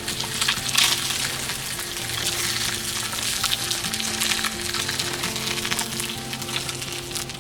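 Food sizzling and crackling as it fries in a pan, with some stirring, over soft background music.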